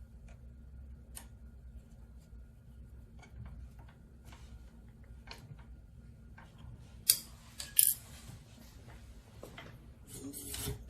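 Light metallic clicks and taps of hand work on a scooter's brake parts, with two sharp metal clinks about seven and eight seconds in. A pitched tone starts near the end.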